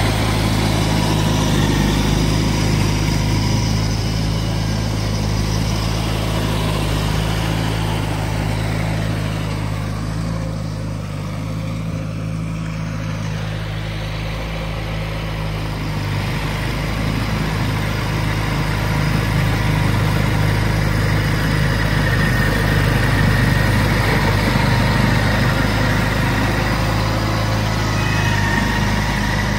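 1992 John Deere 318 garden tractor's air-cooled Onan two-cylinder engine running steadily while its front-mounted snowblower throws heavy wet snow. The sound fades somewhat as the tractor moves away partway through, then grows louder again as it comes back.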